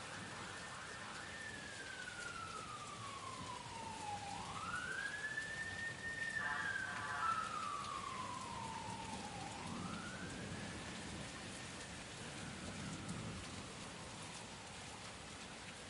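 An emergency vehicle's siren in a slow wail over steady rain: the tone slides down and swoops back up twice, growing louder toward the middle, then fades away while the rain keeps falling.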